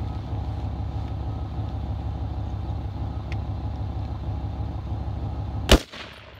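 A single rifle shot fired from the prone position, a sharp crack near the end that is the loudest sound, over a steady low rumble.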